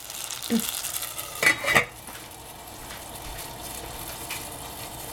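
A stainless-steel lid clinks twice onto a stainless saucepan about a second and a half in, then the soup sizzles steadily under the lid.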